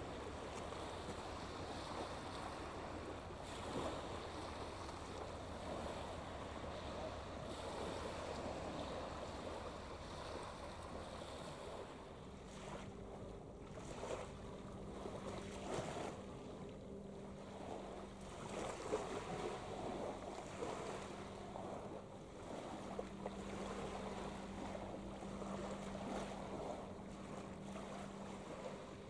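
Small waves lapping on a shingle beach, with low wind rumble on the microphone. About twelve seconds in this gives way to a ship's engine hum, steady in pitch, over faint harbour water noise.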